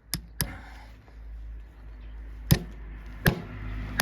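Sharp knocks of farrier's tools working a donkey's hoof: three quick ones at the start, then two louder single strikes later, over a low rumble that builds from about a second in.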